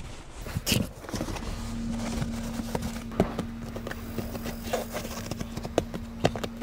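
Irregular soft knocks and taps of a rubbery all-weather floor liner being handled and pressed into place on a car's rear floor. A steady low hum comes in about a second and a half in and holds.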